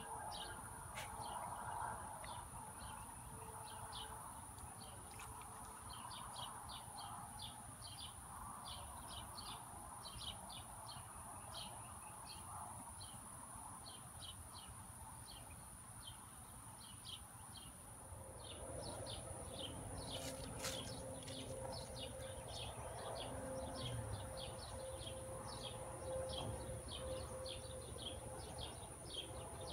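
Faint outdoor ambience: small birds chirping in short high notes several times a second, over a constant high-pitched whine and a low rumble. About two-thirds of the way through, a faint steady hum joins in.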